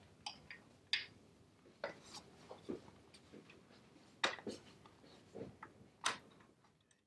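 Faint, scattered clicks and knocks as a roller blind is handled and fitted up into an open cassette headrail, about seven in all, the loudest a little past four seconds in.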